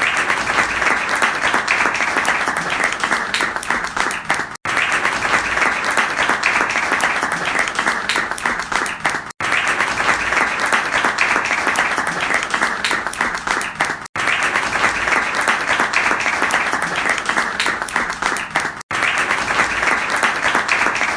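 A crowd applauding: dense, steady clapping from many hands. It cuts out for an instant about every five seconds, where a short recording loops.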